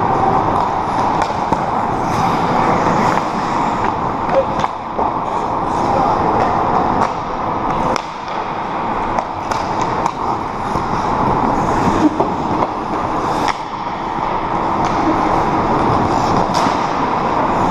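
Ice hockey being played: a steady wash of skate blades scraping and carving the ice, with many sharp clacks of sticks and puck scattered through.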